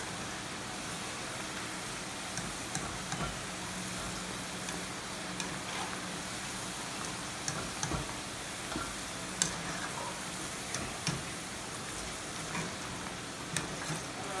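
Potato fries deep-frying in hot oil, a steady sizzle, with scattered light clicks and scrapes as a wire skimmer lifts them out against the pan and steel bowl.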